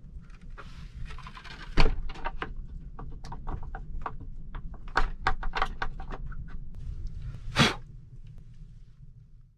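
Wooden plank door of a log shelter pulled shut with a thud about two seconds in, then a run of clicks and knocks as the metal door latch is worked, and another loud bump near the end.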